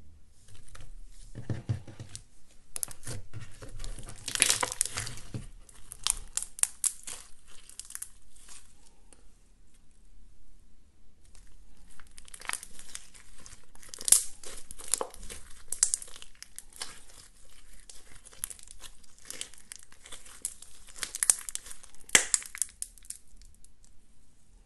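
Neon pink slime with small foam beads being stretched, squeezed and folded by hand, giving a dense crackling of fine sticky pops and clicks. It comes in two long spells with a short pause about ten seconds in.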